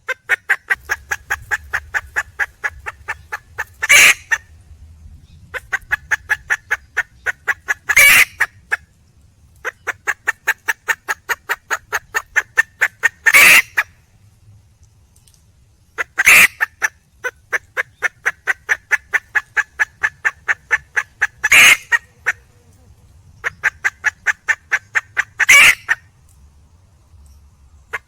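Junglefowl hen calling for a male. Fast runs of short clucks, about five or six a second, are broken every four to five seconds by a single louder call, six times over, in an even repeating pattern.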